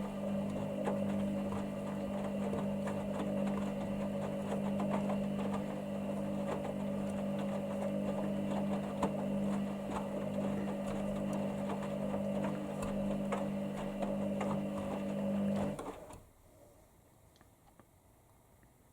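Hoover Dynamic Next washer-dryer running mid-wash, a steady motor hum with many small clicks and knocks. It cuts off about 16 seconds in, leaving near quiet.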